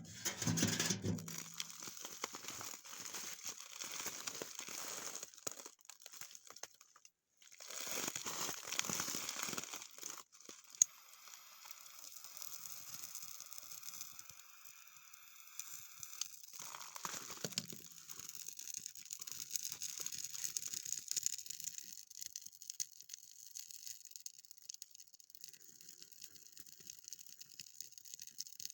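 Crinkling and crunching handling noises, irregular and full of small clicks, in several short pieces with abrupt cuts at about 7 and 10 seconds.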